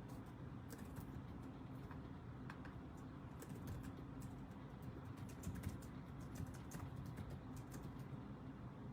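Typing on a computer keyboard: quick, irregular light key clicks that come thickest in the second half, over a low steady room hum.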